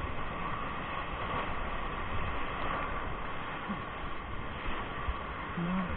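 Whitewater rapids rushing and churning around a river raft, a steady dense rush of water close to the microphone.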